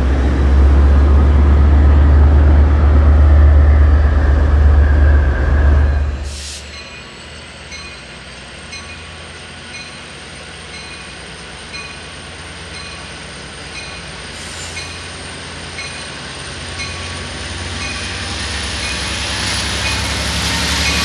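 Metrolink diesel-electric passenger locomotive running close by with a heavy, low engine rumble for about six seconds, then cutting off abruptly. A quieter rail scene follows, with a faint repeated tone about twice a second and a thin high tone that slowly rises, growing louder toward the end as a train draws near.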